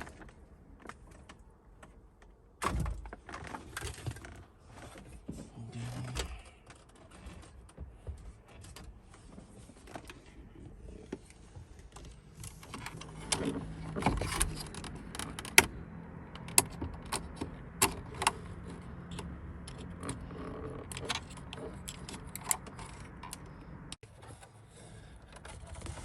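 Scattered clicks, taps and rattles of hand tools and loose dashboard parts while an instrument cluster is being worked loose, with one louder knock about three seconds in and a busier run of clicks in the middle.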